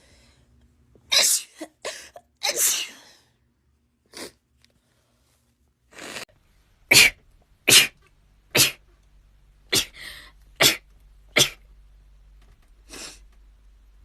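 Rapid-fire human sneezing: a few sneezes close together, then a long string of about eight short, sharp sneezes roughly a second apart.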